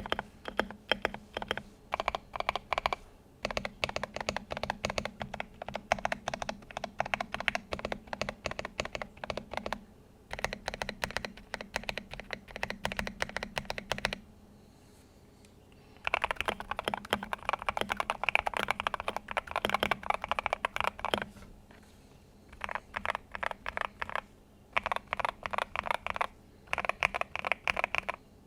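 Custom 60% mechanical keyboard being typed on in fast bursts of key clacks. It has hand-lubed Gateron Cap Yellow linear switches on an aluminium plate in a foam-filled GH60 case, with XDA PBT keycaps. There are short pauses between runs and a longer pause about halfway through.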